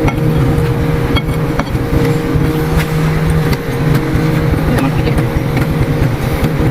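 An engine running at a steady, even pitch, with scattered sharp clicks and knocks from the work on the machine.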